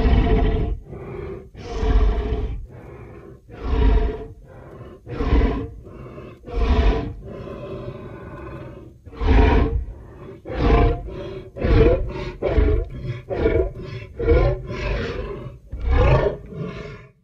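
Made-up stegosaurus call sound effects: a string of loud pitched animal calls about one to two seconds apart, then quicker, shorter calls about twice a second from about ten seconds in.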